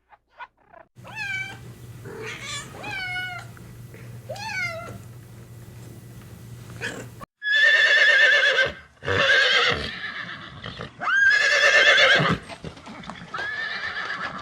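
Horse whinnying again and again, each call wavering in pitch. The first half holds softer calls over a low hum. The second half holds three loud whinnies and a quieter one near the end.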